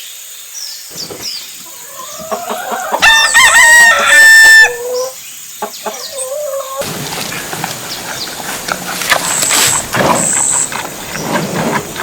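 Animal calls: a long, loud pitched call about three seconds in, a few shorter calls after it, then a stretch of hissy noise with two brief high tones.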